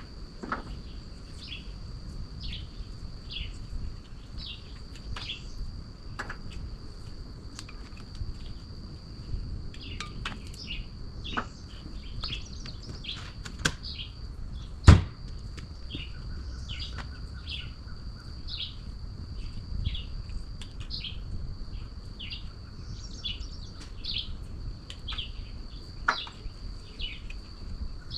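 Songbirds chirping in many short repeated calls over a steady, high-pitched insect drone, with a low rumble underneath. A single sharp knock about halfway through is the loudest sound.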